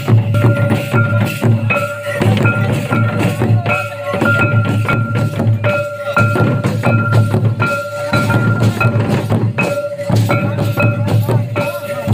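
Santali folk dance music: hand-beaten madal barrel drums keep up a fast, even rhythm, with a melody of short, repeating high notes over it.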